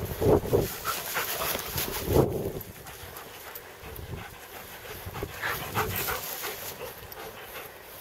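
Dog panting while it moves through long dry grass, with louder rustling in the first couple of seconds.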